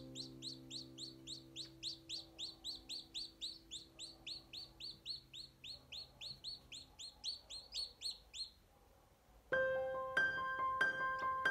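Newly hatched chicks peeping rapidly, a run of short falling peeps about five a second, over a low held music chord that fades away. The peeping stops about eight and a half seconds in, and after a short pause bright, chiming music notes begin.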